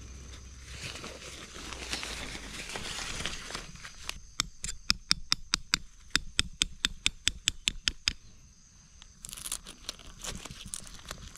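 Synthetic ground sheet and tent fabric rustling and crinkling as it is handled. In the middle comes a run of about twenty quick, evenly spaced clicks, some five a second, lasting about four seconds.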